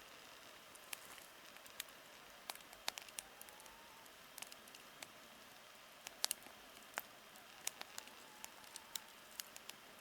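Campfire crackling: wood popping in sharp, irregular snaps, several a second at times, over a low steady hiss.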